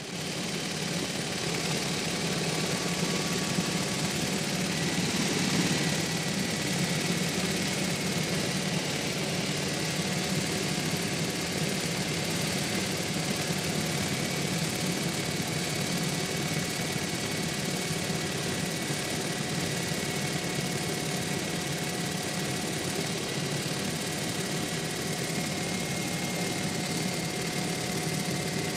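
Helicopter engine and rotor heard from inside the cabin: a steady drone with a thin, high, constant whine on top.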